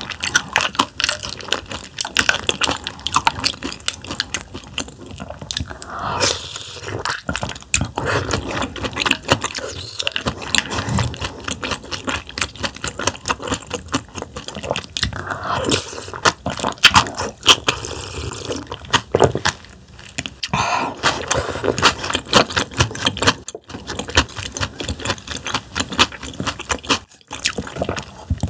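Close-miked slurping and wet chewing of spoonfuls of cold damselfish mulhoe, raw fish slices in a doenjang soup: dense mouth clicks and smacks, with a few longer slurps.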